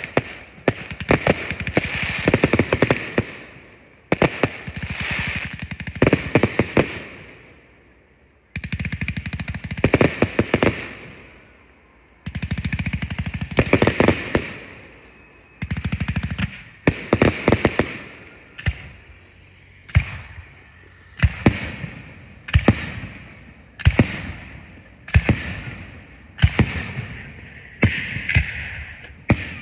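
Consumer firework cakes firing: rapid volleys of launches and bursts with crackling that pause briefly twice. In the second half they settle into single shots, each ending in a bang, a little over one a second.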